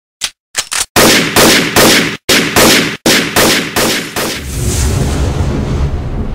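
A rapid string of gunshot sound effects: about nine loud shots over roughly three seconds, each with a short echo, followed by a low rumble that swells and then fades.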